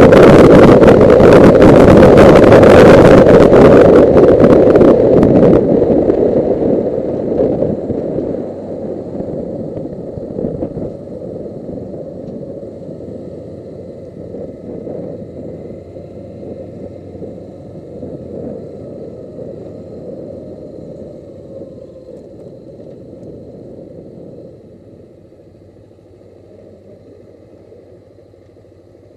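Suzuki GS500E's air-cooled parallel-twin engine and loud wind rush heard from a helmet camera at road speed. About five seconds in the wind noise drops away, and the engine and road noise fade steadily as the bike slows and comes to a stop.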